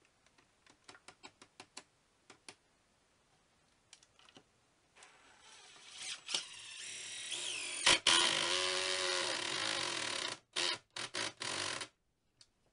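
A few light clicks, then a DeWalt cordless drill/driver runs up from about five seconds in, driving a screw through the wooden board into the wall. Near the end it stops and gives several short bursts of the trigger to snug the screw down.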